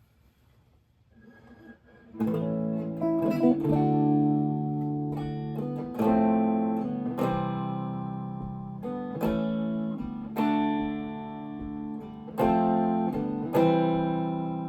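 Acoustic guitar playing an intro: chords strummed and left to ring, re-struck every second or two, starting about two seconds in.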